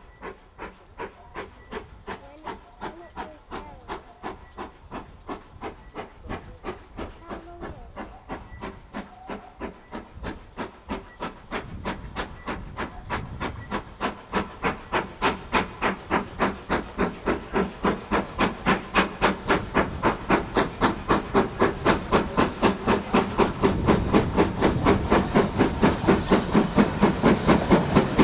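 Steam locomotive working under steam, its exhaust chuffing at a steady beat of about three a second and growing steadily louder as it approaches.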